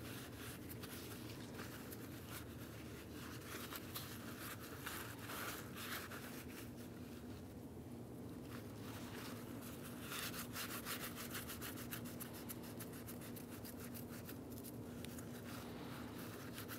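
Faint scratchy rubbing of a rag being wiped over a metal brake caliper slide pin.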